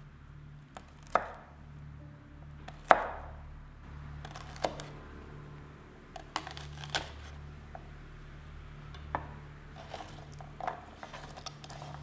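Kitchen knife cutting asparagus spears on a wooden cutting board: about seven separate knocks of the blade going through the spears onto the board, a second or two apart, the loudest about three seconds in. Lighter small taps follow near the end, with a steady low hum underneath.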